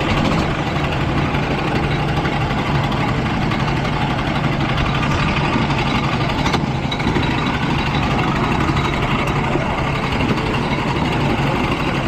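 Go-kart engine running steadily at a low, even speed.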